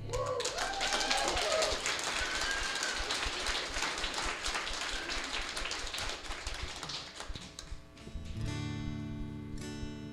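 A congregation applauding for about eight seconds after a song. Then an acoustic guitar begins strumming chords, starting the next worship song.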